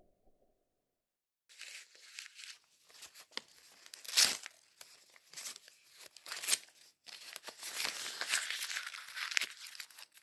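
Irregular crinkling and crackling, like something being crumpled, starting after about a second and a half of silence. The loudest crackle comes about four seconds in, and the crackling grows denser near the end.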